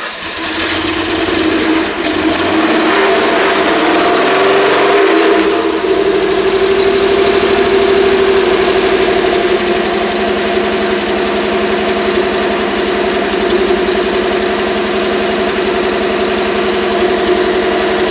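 Car engine, freshly swapped into a Mercedes-Benz W126, running just after it has started, with an uneven, shifting note for about the first five seconds. It then settles into a steady idle through its newly welded exhaust pipes.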